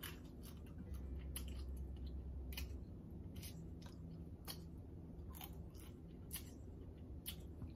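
Quiet eating sounds: blue crab meat being chewed, with scattered short wet mouth clicks and smacks, and fingers sucked clean of sauce about halfway through.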